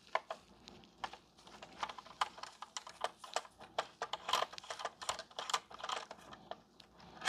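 Light, irregular clicking and tapping of a screwdriver and small metal parts as screws are worked out of the chip programmer's case, ending in one louder clack.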